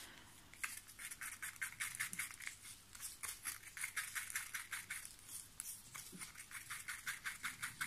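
Pigment powder being stirred into epoxy resin: a stirring stick scraping round a mixing cup in quick, even strokes, about four a second.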